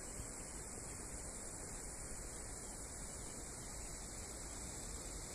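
Steady hum and hiss with no distinct events.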